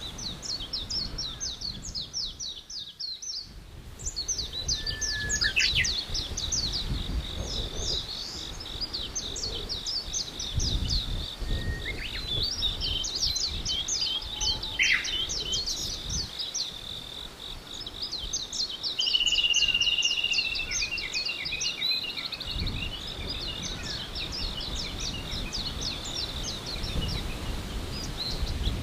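Forest birds singing: long runs of quick, high, repeated chirps over a steady high-pitched trill, with a low background rush. The sound drops out briefly about three seconds in.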